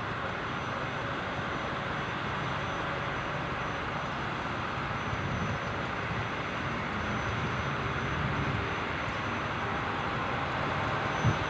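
SU42 diesel locomotive's engine running as it pulls away with a passenger train, heard from a distance as a low, uneven drone under a steady hiss. A short thump comes near the end.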